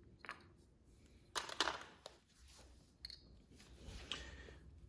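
Small plastic parts of a dismantled electronic door lock being handled: a few sharp clicks and a brief clatter about one and a half seconds in, then lighter knocks near the end.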